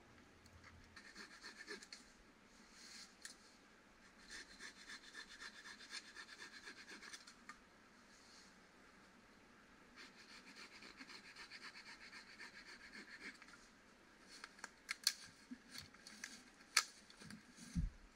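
A small hand saw rasps through a dead branch in three runs of quick, even strokes. Then, from about three-quarters of the way in, come several sharp cracks of dry sticks being snapped.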